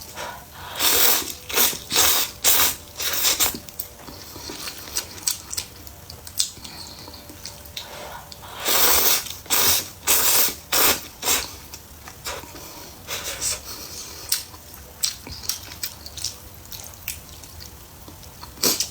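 Close-miked noodle eating: loud slurps in two runs, about one to three seconds in and again about nine to eleven seconds in, with quieter wet chewing and smacking clicks in between.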